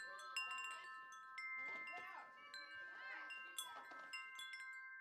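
Logo jingle of chimes and bell tones: many quick bright strikes, several of them held ringing, with swooping tones underneath.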